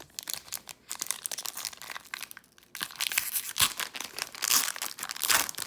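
Foil trading-card booster pack wrapper being torn open and crinkled by hand, an irregular crackling and tearing that grows louder in the second half.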